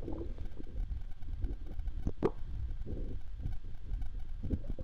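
Water plopping and sloshing around a kayak over a steady low rumble, with one sharper click about two seconds in.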